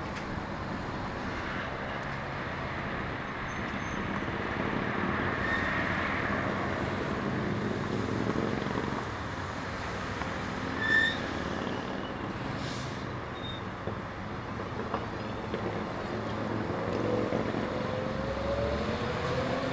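Steady street traffic noise, with a short high squeak about eleven seconds in. Near the end comes a rising electric whine as a trolleybus pulls away from its stop.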